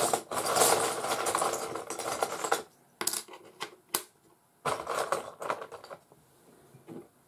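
Rattling clatter of small hard objects in two spells, with a couple of sharp clicks between them.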